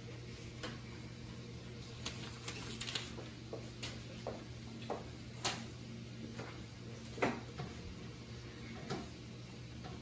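Scattered light clicks and knocks of hands handling a small glass aquarium's plastic fittings and lid, over a steady low hum.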